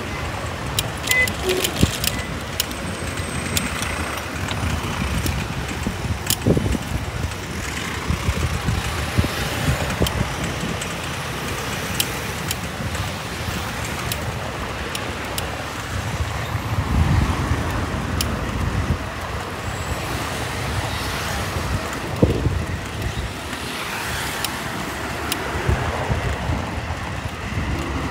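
Road traffic driving along a busy avenue as a steady rumble, with vehicles passing louder about halfway through and again a few seconds later. Sharp clicks come now and then, mostly in the first few seconds.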